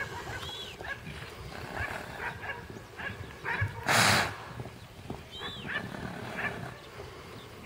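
Horses galloping loose over turf, with irregular dull hoof thuds. One loud blowing snort comes about four seconds in.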